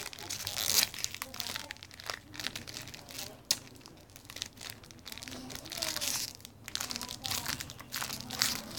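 Plastic snack packaging crinkling and tearing as it is pulled open by hand, in irregular crackles.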